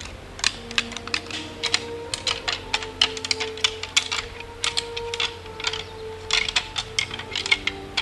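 A rack of deer-rattling antlers clashed and ground together, giving quick, irregular clacks and rattles that imitate two bucks sparring. Soft held musical tones sit underneath.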